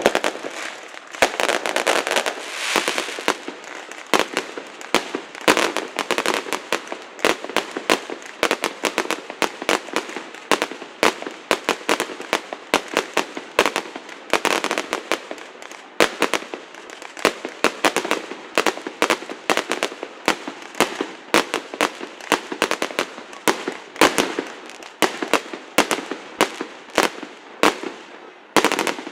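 Fireworks display: a rapid, unbroken string of sharp bangs and cracks, several a second, with crackling between them.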